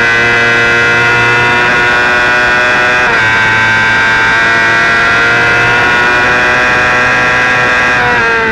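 Race motorcycle engine held at full throttle high in the revs, with wind rushing over the onboard camera. There is a brief dip in pitch about three seconds in, a quick upshift, and the engine note starts to fall at the very end as the throttle closes.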